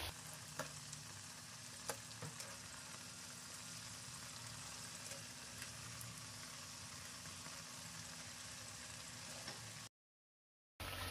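Chicken vadas deep-frying in coconut oil, a faint steady sizzle of bubbling oil, with a few light clicks in the first couple of seconds. The sound drops out to silence for about a second near the end.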